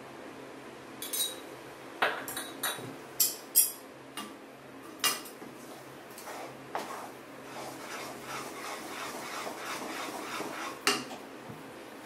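Wooden spatula stirring thick Asoka halwa in a metal kadai: a few sharp knocks against the pan in the first half, then a run of quicker scraping strokes and one more knock near the end. The halwa is being cooked down until it thickens and curls away from the pan.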